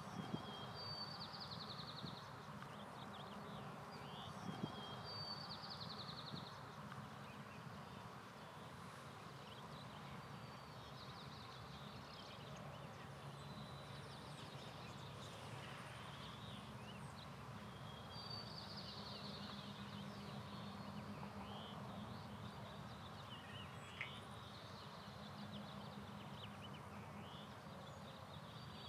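Faint outdoor ambience: short, high bird calls recur every few seconds over a steady low background hiss, with a single sharp click about 24 seconds in.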